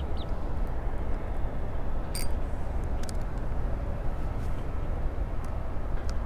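Steady low outdoor rumble with a few light clicks, about two, three and six seconds in.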